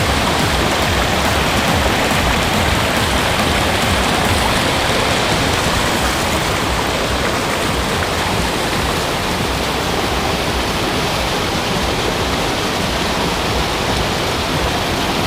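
Waterfall water rushing in a loud, steady roar.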